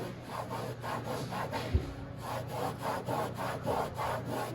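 Hand scrubbing of hardened spray adhesive, softened with lighter fluid, on a fiberglass boat's non-skid deck: quick rhythmic rubbing strokes at about three to four a second. A single low thump comes a little under two seconds in.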